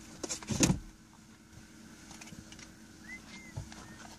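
Low steady hum inside a stopped car, with a few short scuffing noises in the first second.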